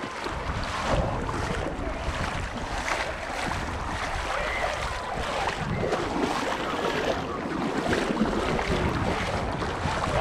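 Beach ambience: wind buffeting the microphone over the steady wash of gentle surf.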